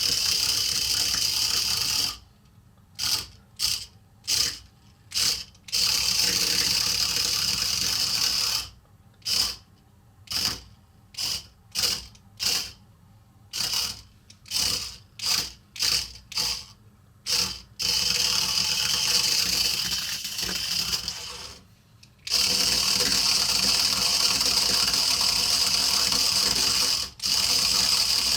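HexBug Fire Ant robot's small electric drive motors and gears whirring as it spins in place. The whir runs steadily, then is switched on and off in quick short bursts, then runs steadily again.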